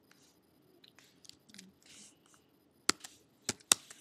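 Computer keyboard being typed on: a few faint taps, then three sharp key clicks close together near the end.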